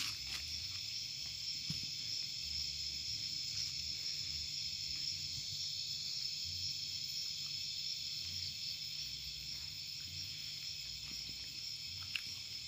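Steady chorus of crickets and other night insects, several high shrill tones held without a break, over a faint low rumble.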